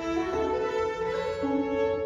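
Two fiddles and a banjo playing an old-time fiddle tune, the fiddles bowing sustained notes against each other.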